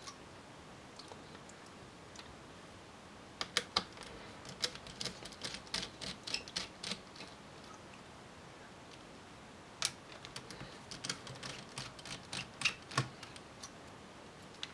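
Faint scattered small clicks and taps as a small Phillips screwdriver undoes the laptop's heatsink screws and the loose screws are lifted out, in two bursts of clicking a few seconds apart.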